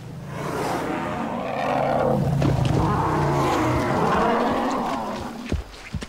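African bull elephant giving one long, low roar lasting about five seconds, swelling and then fading: an aggressive call between sparring bulls. A few sharp knocks follow near the end.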